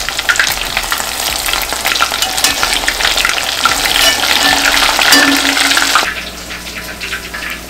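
Coconut-crusted shrimp deep frying in hot oil, sizzling and crackling steadily while being stirred and turned in the pot with a metal utensil. The sizzle gets somewhat quieter about six seconds in.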